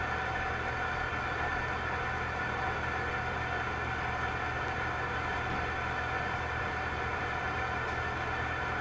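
A steady mechanical hum made of several constant tones over a low rumble. It does not change.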